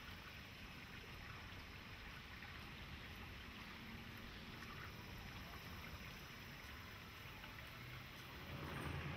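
Faint, steady trickle of shallow water running along a narrow concrete canal, over a low hum. Near the end, the sound of an approaching vehicle rises in over it.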